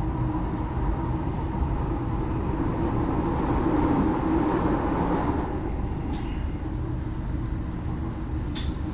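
Delhi Metro train running at speed: a continuous rumble that swells about three to five seconds in, then eases a little.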